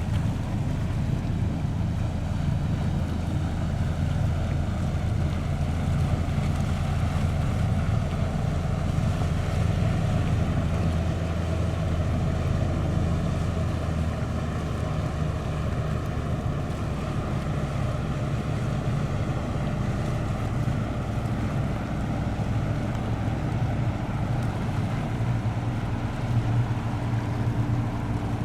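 Boat engines running with a steady low hum, with wind buffeting the microphone; the hum's pitch shifts a little about halfway through and again near the end.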